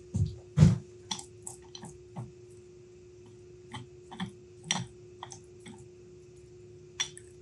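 Metal clicks and knocks from an adjustable wrench being picked up and fitted onto the screw of a fractal vise, the loudest in the first second, then scattered lighter clinks as the wrench works the vise. A steady low hum runs underneath.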